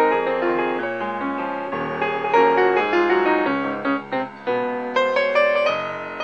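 Background piano music, notes played in a flowing melody over sustained chords.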